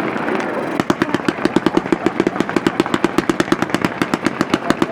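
A 100-shot 'Fast Lane' firework cake firing its shots in rapid, even succession, about eight sharp launch reports a second, starting about a second in.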